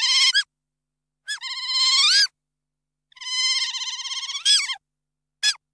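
Otter vocalizing: high, warbling squeals, each about a second long and ending in a quick up-and-down sweep, with a short chirp near the end.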